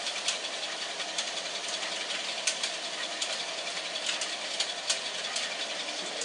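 Toy train running on its track: a steady whirring with sharp, irregular clicks and rattles throughout; it cuts off suddenly at the end.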